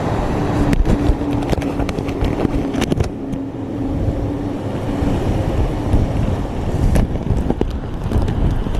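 Hurricane-force wind buffeting a camera sealed in a waterproof bag, a heavy, muffled rumble that rises and falls in gusts. Scattered sharp clicks and knocks run through it, and a steady low tone sounds for about the first half.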